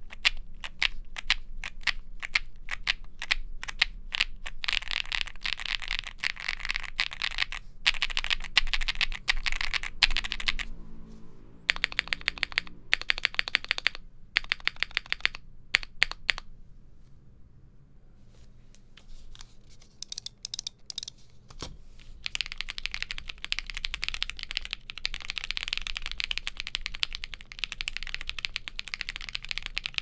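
Typing on a Cidoo V75 Plus gasket-mounted mechanical keyboard with a polycarbonate plate, factory-lubed Cidoo Mint Linear switches and GMK Villanelle keycaps, with a poppy sound. Fast steady typing gives way about a third of the way in to a handful of single key presses spaced apart. After a few seconds' pause, fast typing resumes for the last third.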